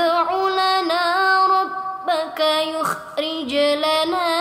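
A young woman's voice reciting the Quran in melodic murottal style, holding long drawn-out vowels with ornamented turns of pitch, with a short break about three seconds in.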